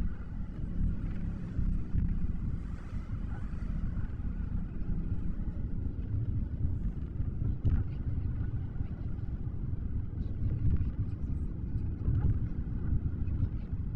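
Car driving along, a steady low road and engine rumble.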